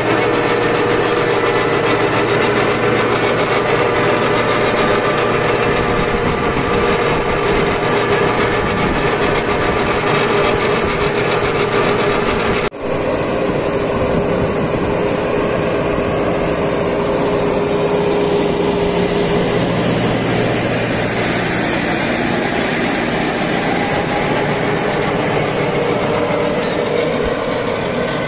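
Başak 2110S tractor engine running steadily under load while driving a Toscano 3500 vertical power harrow and packer roller through dry soil, a dense mechanical drone with a held hum and the clatter of the working harrow. About halfway through the sound dips for a moment, then carries on.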